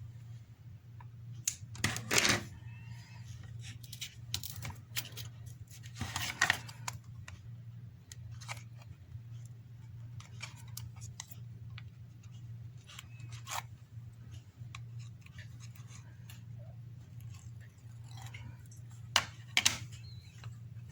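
Small clicks, taps and rustles of double-sided adhesive tape being handled and peeled during a phone battery swap, over a steady low hum. The sharpest clicks come about two seconds in and near the end.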